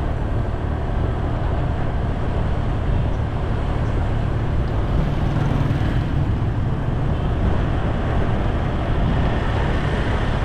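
Steady rumble of a moving vehicle travelling along a paved road, even and unbroken throughout.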